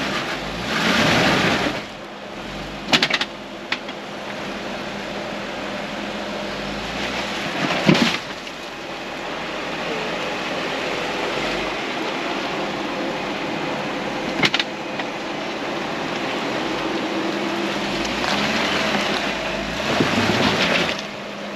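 Jeep crawling slowly over a trail obstacle, its engine running low and steady, with a few sharp knocks and clunks spread through and louder swells of noise near the start and near the end.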